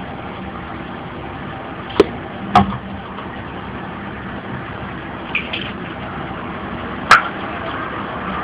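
Sharp clacks of a plastic bottle and small fuel containers being handled and set down on a wooden table: two knocks about two seconds in, a couple of faint taps later, and a loud one near the end, over a steady background hiss.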